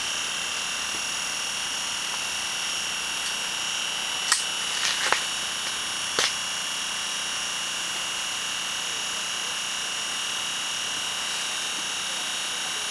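A steady hiss with a faint, even high-pitched whine, broken by a few short sharp clicks between about four and six seconds in.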